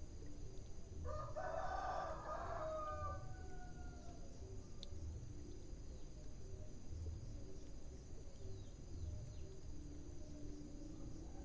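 Faint crackling of a wood fire over a low steady hum. About a second in comes one drawn-out animal call, pitched and lasting about two seconds.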